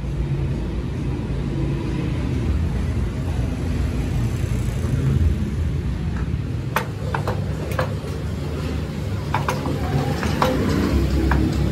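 Steady low rumble in the background, with light metallic clicks and taps from about seven seconds in as the steel parts of a hydraulic bottle jack are handled and fitted together.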